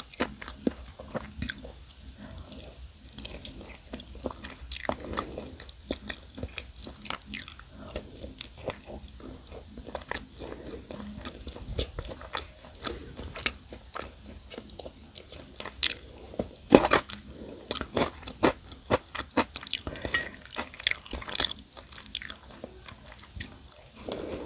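Close-up crunching and chewing of Goobne Gochu Basasak crispy fried chicken, with irregular sharp crunches throughout and a run of louder ones about two-thirds of the way through.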